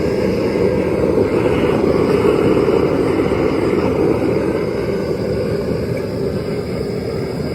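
Propane torch burner firing steadily into a plaster-and-sand blast furnace: a loud, even rush of flame and air, swelling a little about two seconds in.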